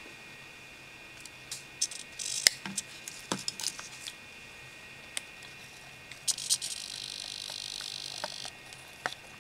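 Sharp clicks and taps from a small home-made servo-and-switch rig being handled, then a steady high whirring hiss for about two seconds near the end that cuts off suddenly.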